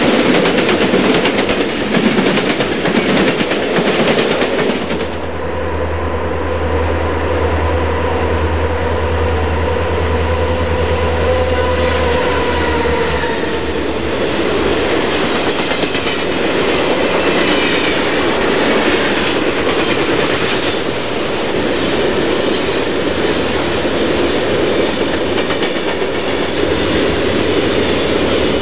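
HO scale model trains rolling past at close range: a continuous rumble of wheels on track with many fine clicks. A steady low hum joins in from about five seconds in and fades out around twelve seconds.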